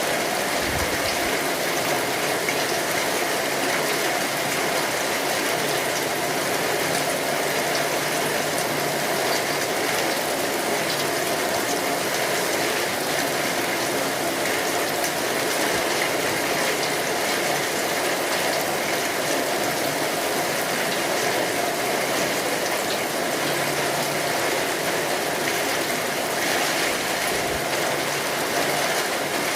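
Steady rain: an even hiss with a fine patter of many small drops, unchanging throughout.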